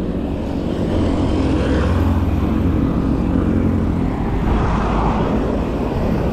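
Wind rushing over an action camera's microphone while riding a bicycle along a road, with motor traffic passing and swelling twice, about two and five seconds in.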